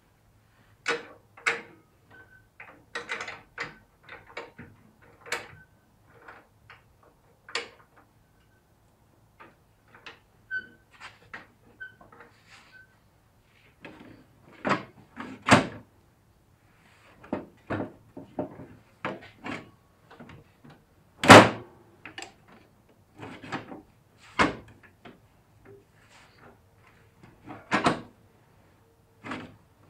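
Irregular knocks, clicks and clatter of objects being handled and set down, dozens of separate hits with no steady rhythm; the loudest knock comes about two-thirds of the way through.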